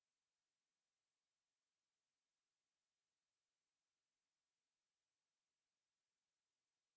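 A single electronically generated 9851 Hz sine-wave test tone, a steady high-pitched whistle held at one pitch and one level.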